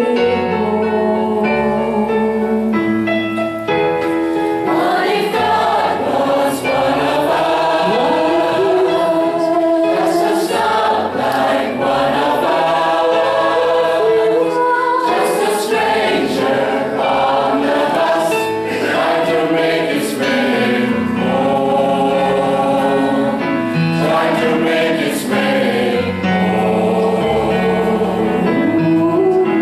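A gospel choir singing in harmony with band accompaniment, a bass line stepping beneath the voices and occasional percussion hits.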